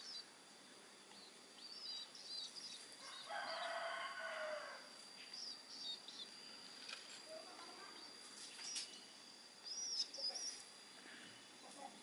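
Long-tailed shrike nestlings giving short, high begging chirps now and then over a faint steady high tone. About three seconds in, a rooster crows once in the background.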